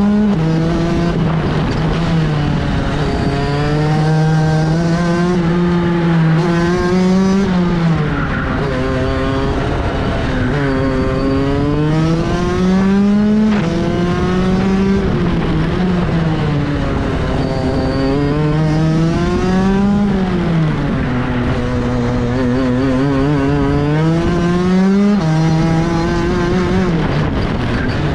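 Racing kart engine heard onboard at full lap pace. Its note climbs steadily for several seconds while accelerating down each straight, then drops sharply as the driver lifts for the next corner, about five times over.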